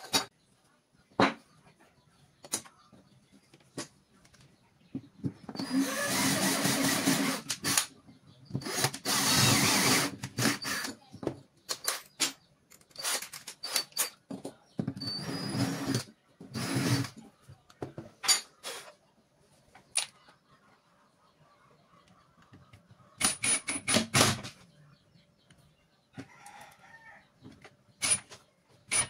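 Cordless drill run in a series of short bursts, the longest two lasting about two seconds each, with sharp clicks and knocks of small metal parts and tools being handled between the bursts.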